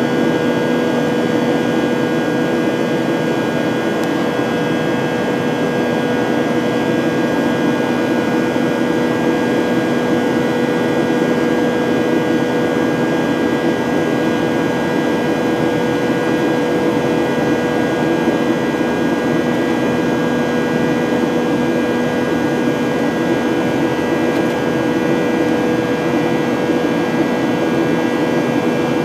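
Steady cabin drone of a Boeing 737-900ER's CFM56-7B turbofan engines and rushing air, heard from inside the cabin: an even hum with a few held tones running through it.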